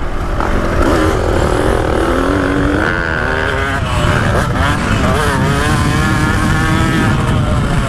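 2015 KTM 125 SX single-cylinder two-stroke dirt bike engine running hard on track, its pitch climbing and dropping again and again as the rider works the throttle and shifts. Wind rumbles on the microphone.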